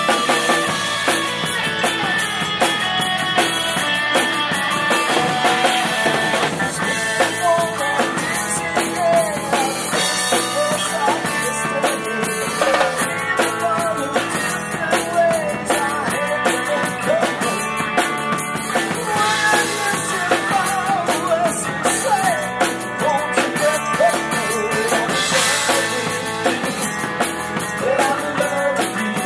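Live band playing, with a steady drum-kit beat under a wavering melodic lead line.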